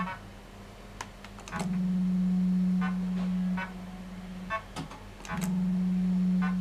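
1981 Super 2p Eachway Shuffle fruit machine playing a game: the reels spin with a loud, steady low motor hum that lasts about two seconds and comes twice, with sharp clicks as reels stop and short electronic beeps in between.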